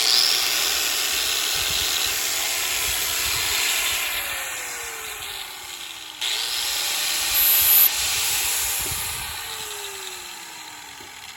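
DeWalt power sander grinding the edge of a steel machete blade: a loud, rough hiss with a motor hum that sinks steadily in pitch. It breaks off and starts again about six seconds in, louder for a moment, then slowly fades.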